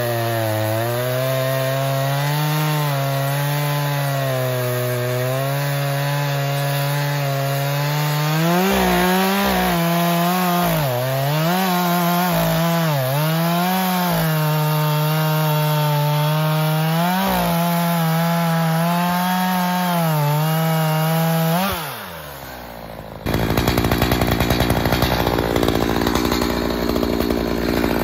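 Echo CS-4510 two-stroke chainsaw bucking conifer logs at full throttle, its pitch dipping and recovering several times as the chain loads up in the cut. About 22 seconds in the engine winds down, and a second later a louder, rougher cut starts abruptly.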